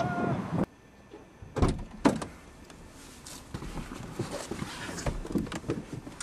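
Two sharp thumps about half a second apart, then rustling and light knocks as a person clambers over the seats inside a small hatchback car.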